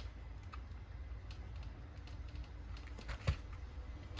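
A few light clicks and taps of small parts and screws being handled on the RC car's plastic chassis, with one sharper click about three seconds in.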